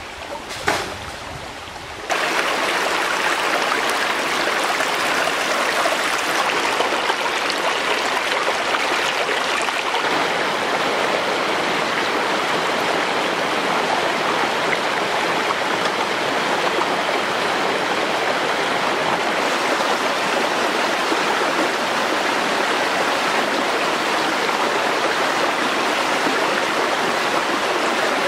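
Shallow rocky stream rushing over stones in a small cascade, a steady splashing that comes up suddenly about two seconds in. Before that, over quieter water, there is a single sharp knock.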